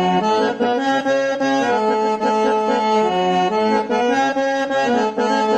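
Instrumental break in a South Asian devotional folk song: a free-reed instrument plays a melody of held notes that change several times a second, with no singing.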